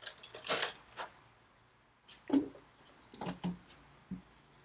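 A few short plastic clicks and knocks as the lids are pressed down and latched onto the jars of a Ninja and a VAVA blender. The blenders are not running.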